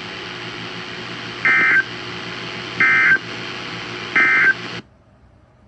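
NOAA Weather Radio Emergency Alert System end-of-message: three short digital SAME data bursts about 1.4 s apart over steady radio hiss, the code that closes the alert. The hiss cuts off suddenly near the end as the transmission drops.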